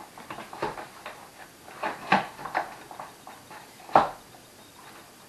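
Plastic clicks and knocks from a baby stroller's canopy and frame being handled and pushed while trying to snap the canopy into place, with one loud sharp click about four seconds in.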